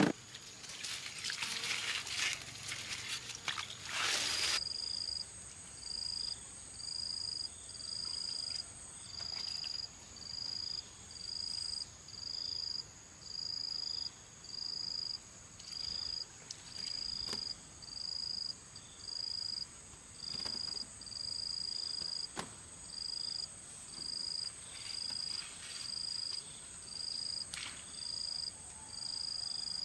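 Insects calling: a high-pitched chirp repeated about once a second over a steady high buzz. It starts after about four seconds of rustling, and a few faint clicks fall in between.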